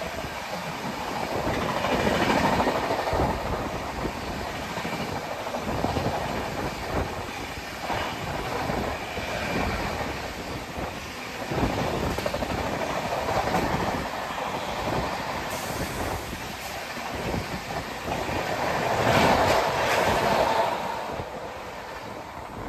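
Express passenger train's coaches passing close by at speed, the wheels beating over the rail joints in a steady clatter. It swells louder twice and falls away at the very end as the last coach goes by.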